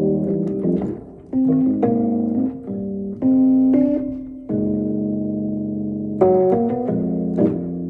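Fender Rhodes electric piano playing sustained chords, with a long held chord midway, then a run of quicker struck notes near the end.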